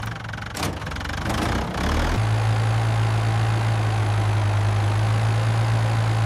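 Animated sound effect of an excavator's diesel engine starting: a click and a short rising noise, then about two seconds in it settles into a steady, loud idle.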